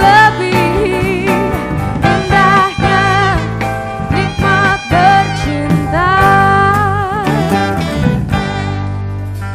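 A song with a solo singer holding long notes with wide vibrato over an instrumental accompaniment. The voice drops away near the end, leaving the instruments sustaining.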